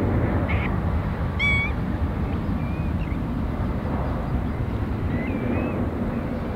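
Steady low rumble of a jet airliner's engines on final approach, with several short, wavy whistled bird calls over it, the clearest about one and a half seconds in.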